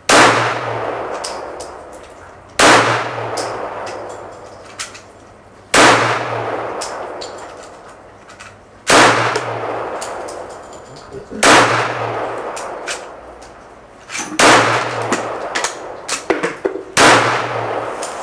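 Seven 9mm shots from a Kel-Tec PF9 subcompact pistol, fired singly about two and a half to three seconds apart, each with a long echo under the range's roof. The pistol cycles and ejects cleanly through the whole magazine of 124-grain rounds.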